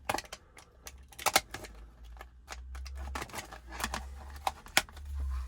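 An X-Acto knife cutting through a plastic CD case: irregular clicks, ticks and scrapes as the blade works the plastic, with a low handling rumble from about two seconds in.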